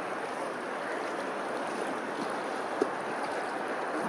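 Steady wash of open water and wind, with one brief, short, slightly louder sound just before three seconds in.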